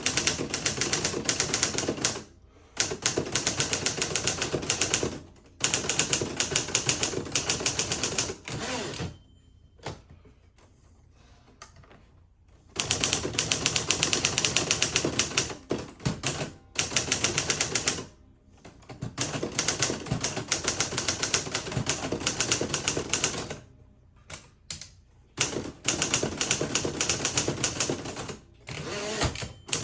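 Manual typewriter typed in fast runs of keystrokes, with brief pauses between runs, during a type test of its functions.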